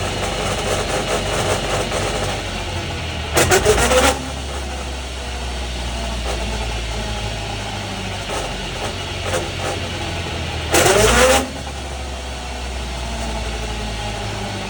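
A car's differential gear making an abnormal noise while the drivetrain runs: a steady low drone, broken twice, about seven seconds apart, by a short loud burst of rattling with a rising pitch.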